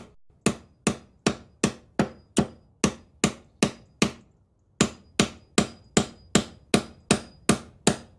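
Hammer striking nails in a steady rhythm of about two and a half blows a second, with one short pause a little past halfway.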